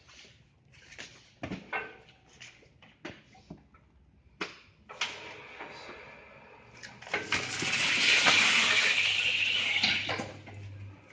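FXJ-6050H carton sealer at work: cardboard knocks and clicks as a box is handled, then the machine's motor hum and a loud hiss for about three seconds as packing tape is drawn onto the carton, fading out near the end.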